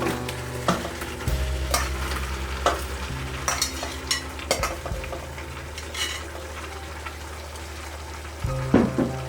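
Food frying in a pan, sizzling while a spoon stirs it, with irregular scrapes and knocks of the spoon against the pan.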